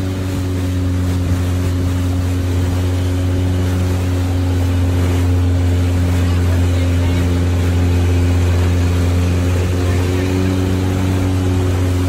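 Motorboat engine running at a steady speed under way, a constant low drone, with water rushing and splashing along the hull.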